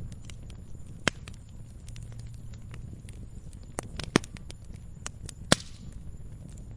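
Campfire crackling: burning wood snapping and popping at irregular intervals, with three sharp pops standing out, about a second in, a little past four seconds and at about five and a half seconds, over a low steady rumble.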